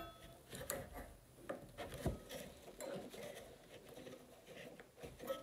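Faint, irregular light clicks and taps of metal band-clamp corner jaws and wooden hexagon sides being nudged into line by hand during a glue-up.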